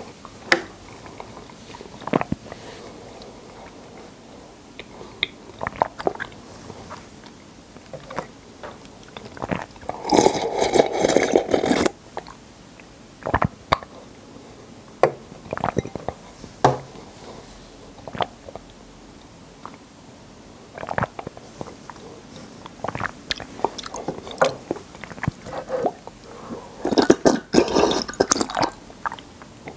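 Close-miked eating sounds of drinkable konjac jelly: scattered wet mouth clicks, with two longer, louder stretches about ten seconds in and near the end.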